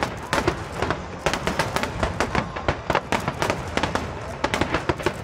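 Aerial fireworks bursting in a rapid, irregular barrage of sharp bangs and crackles, several a second, over a steady low rumble.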